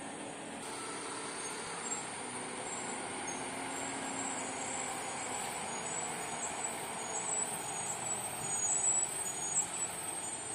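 Lorry engine working as the truck climbs a steep ghat road below, getting louder toward the end as it comes closer. Short high chirps repeat above it.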